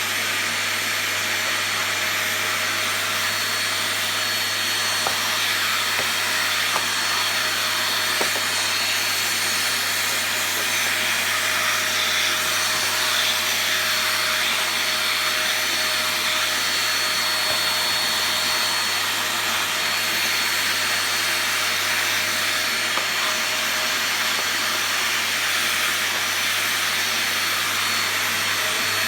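Cheap "Epic" household vacuum cleaner running steadily, a constant rushing hiss with a thin whine in it. A few faint knocks sound in the first ten seconds or so.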